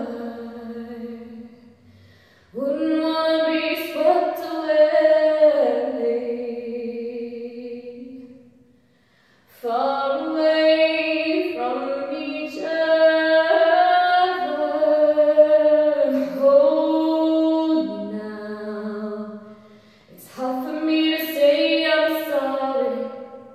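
A woman singing solo and unaccompanied in a tiled stairwell, in long held phrases with short breaks between them.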